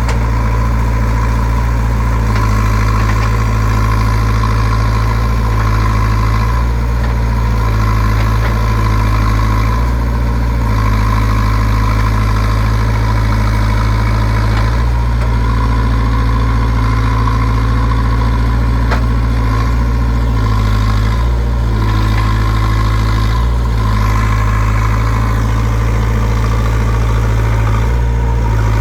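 JCB 3CX backhoe loader's diesel engine running continuously, its pitch dipping and shifting briefly a few times as the load changes, with a steady whine over it.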